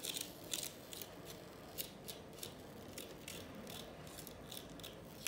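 A small plastic sachet of coloured sand crinkling between the fingers as the sand is shaken out onto a sticky sand-art sheet: a string of short, sharp rustles, several a second and unevenly spaced.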